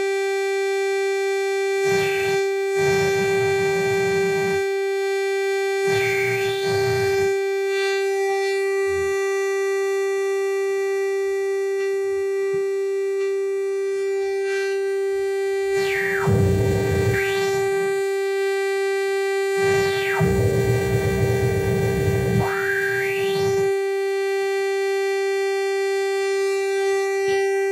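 Powertran Transcendent 2000 monosynth's resonant filter self-oscillating: a steady pitched tone. Several louder, buzzier passages with sweeping pitch come and go over it.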